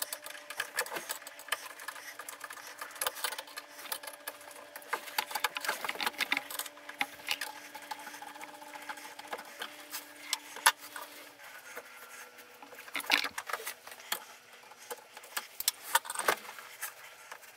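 Screwdriver turning a worm-drive hose clamp to loosen it on a rubber exhaust hose: a quick, uneven run of small metallic clicks and scrapes. A faint steady hum runs underneath.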